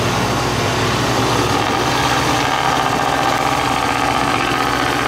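Truck engine running steadily as a pickup climbs a steep, muddy slope.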